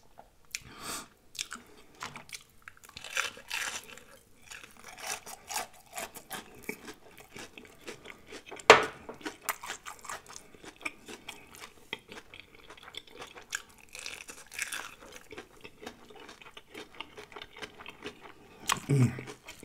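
Close-miked chewing of crispy breaded fried shrimp: irregular crisp crunches, with one sharp, loud crack about nine seconds in.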